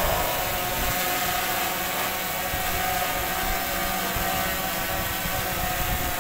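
Steady hiss and hum of an amplified hall's sound system, with a faint steady tone, during a pause in Quran recitation.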